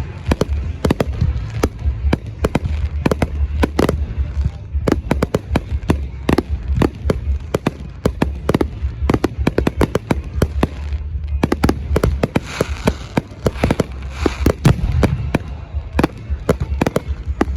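Fireworks display: aerial shells bursting in quick, overlapping bangs, several a second, over a continuous deep rumble.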